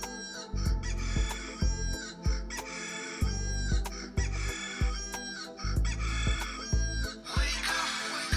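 Phone alarm or ringtone of a rooster crowing over and over, about once a second, on top of a music beat with a thudding bass. Near the end it changes to a dense hissing sound.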